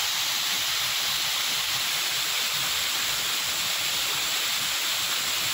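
Small garden waterfall pouring over rocks into a pond: a steady rush of splashing water.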